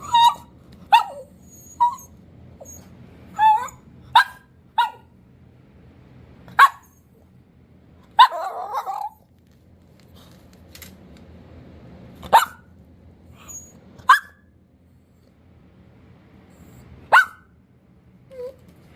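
A dog barking: about a dozen short single barks at uneven intervals, with a longer, rougher bark about eight seconds in.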